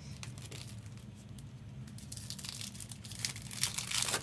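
Foil trading-card pack wrappers crinkling and tearing open, with scattered rustles that grow denser and loudest near the end.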